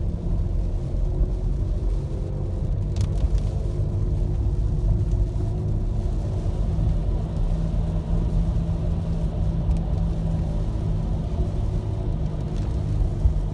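A car's engine and road noise heard from inside the cabin while driving: a steady low rumble.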